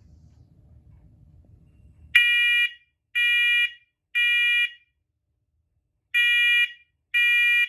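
First Alert smoke alarm's piezo horn sounding its test alarm in the three-beep temporal pattern: three loud, high-pitched beeps about a second apart, a pause, then three more, starting about two seconds in.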